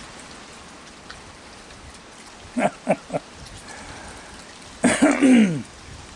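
Heavy rain falling steadily. Three short, quick calls come about two and a half seconds in, and a louder call falling in pitch comes about five seconds in.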